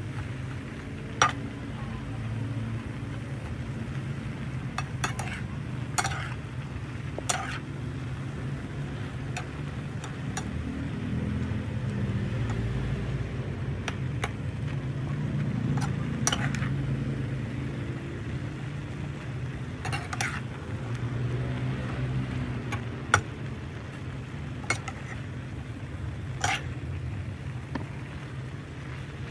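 Metal spatula scraping and knocking against a frying pan while vegetables and meat are stir-fried, with sharp clanks every few seconds at irregular intervals over a steady low hum.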